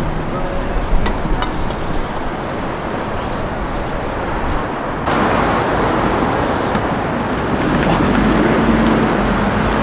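Busy city street traffic: a steady wash of passing cars and buses that suddenly grows louder about halfway through, with a low engine hum near the end.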